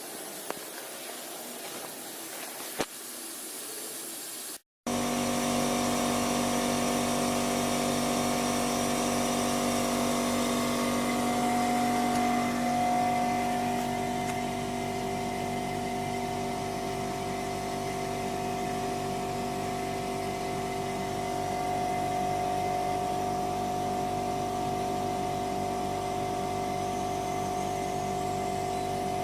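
Air-to-water heat pump running: a steady machine hum and whine made of several held tones over a hiss. About five seconds in, a softer hiss cuts out briefly and gives way to the louder, steady running sound.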